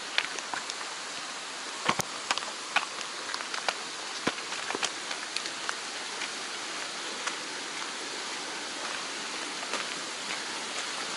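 Steady hiss of water in a wet mountain forest just after rain, with scattered sharp ticks and taps, most of them in the first half.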